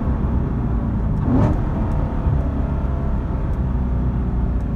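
C7 Corvette Stingray Z51's 6.2 L LT1 V8 heard from inside the cabin through an AWE off-road X-pipe exhaust that deletes the secondary catalytic converters. It gives a steady, deep exhaust drone while driving, with one brief louder blip about a second and a half in.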